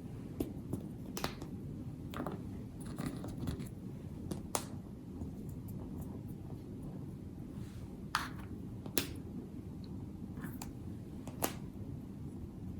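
Quiet room tone with a dozen or so small, sharp clicks and taps scattered irregularly, the strongest about four seconds in, around eight and nine seconds in, and near the end.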